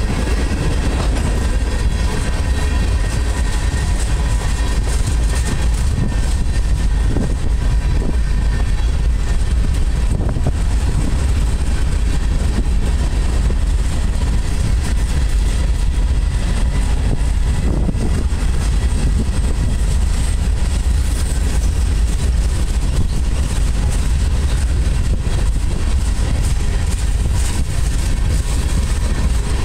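Freight cars of a long mixed freight train rolling past close by: a steady, loud rumble of steel wheels on rail, with a few faint knocks.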